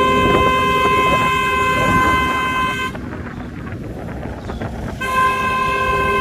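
A vehicle horn sounding in a long, steady blast of about three seconds, falling silent for about two seconds, then blowing again and held on.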